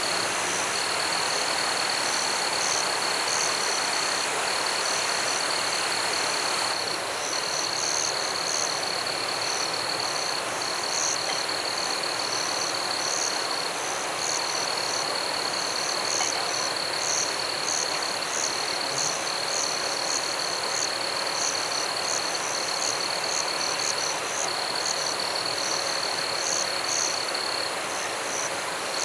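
Rainforest frog-and-insect chorus: a continuous high trill with short breaks, and rapid high chirping calls that grow busier after a few seconds, over the steady rush of a river.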